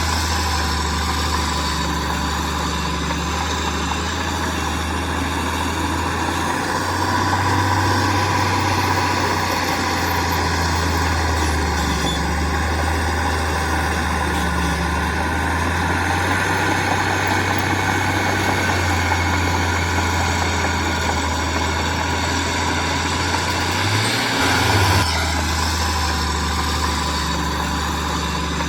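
Heavy construction machinery's diesel engine running steadily, its low note stepping up a little about seven seconds in and shifting briefly again near the end.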